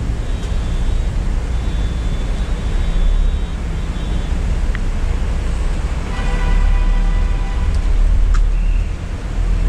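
Volvo B9R multi-axle coach on the move, heard from inside the driver's cabin: a steady low rumble of diesel engine and road noise. A pitched tone comes in for about two seconds past the middle.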